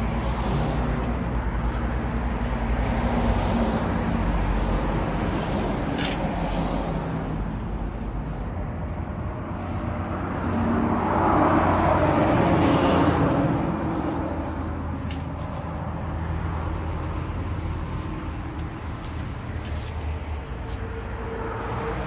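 A motor vehicle engine running steadily, with a low hum, getting louder for a few seconds around the middle.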